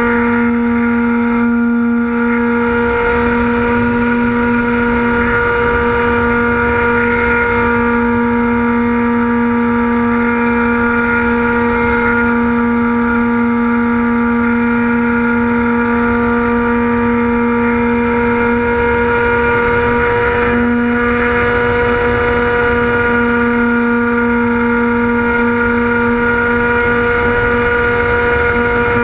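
Radio-controlled model airplane's motor and propeller running at a steady cruising throttle: a steady whine holding one pitch, with wind rushing over the onboard camera.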